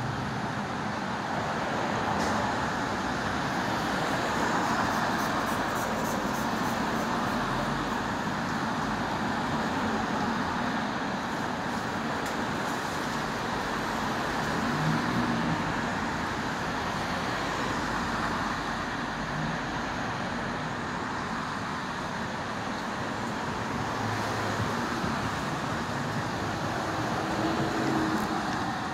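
Steady city street traffic noise, an even vehicle rumble and hiss with no distinct events.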